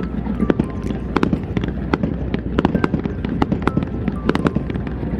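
Fireworks crackling: many sharp, irregular pops in quick succession over a steady low rumble.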